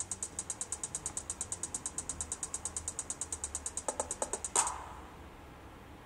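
Rapid, even mechanical clicking, about a dozen clicks a second, that stops abruptly with a few soft knocks and one sharp hit about four and a half seconds in, leaving a faint low hum.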